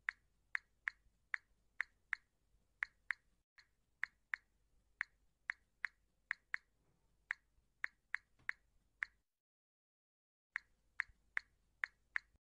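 Smartphone on-screen keyboard key-press clicks as a message is typed: short, sharp taps coming irregularly about two to three a second, pausing for about a second near the end before a few more taps.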